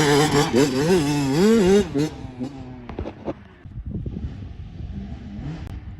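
Dirt bike engine revving up and down in quick waves for about two seconds, then dropping to a quieter, rougher engine sound with a few sharp knocks and rattles.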